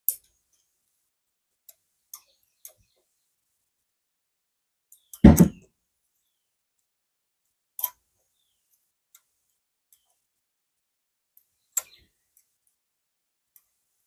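Sparse clicks and taps of tools and metal parts being handled on a workbench, with one louder knock about five seconds in and sharper clicks near eight and twelve seconds.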